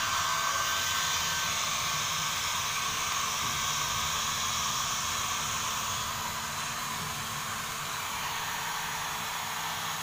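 Hand-held electric hair dryer running with a steady blowing hiss, a little quieter from about seven seconds in.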